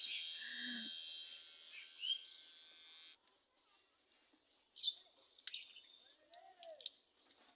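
Electric hair clipper buzzing, switched off suddenly about three seconds in. After it, a few short bird chirps.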